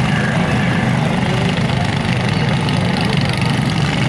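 Riding lawn mower engines running together in a demolition derby, a loud steady mixed drone of small engines.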